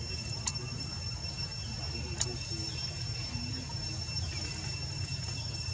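Steady background noise: a low rumble with thin, steady high-pitched tones over it, broken by two sharp clicks, about half a second and about two seconds in.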